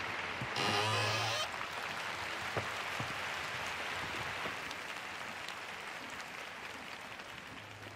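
Large arena crowd applauding, with a louder swell about a second in, then slowly dying down.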